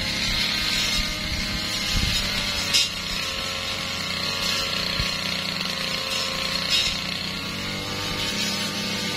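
Petrol brush cutter engine running steadily at high speed under light load, its pitch holding nearly constant, with a couple of brief sharp clicks as it cuts.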